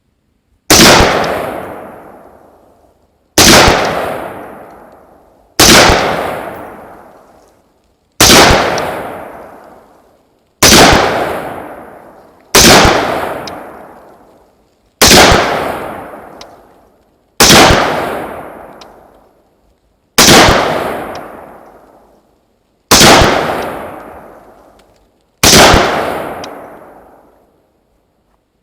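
AR-15-type rifle firing .223 55-grain ball ammunition, eleven single shots at a slow, steady pace about every two to three seconds. Each crack dies away in a long echoing tail.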